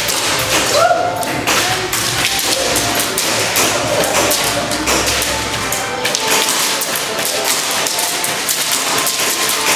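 Airsoft gunfight: many sharp cracks and taps from gas blowback pistols firing and BBs striking surfaces, coming irregularly and overlapping.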